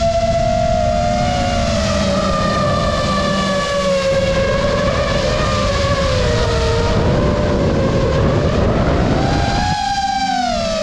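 Five-inch FPV quadcopter (iFlight Nazgul F5D) whining from its brushless motors and propellers, the pitch sinking slowly with the throttle, then climbing sharply and falling again near the end, over a steady rush of wind noise.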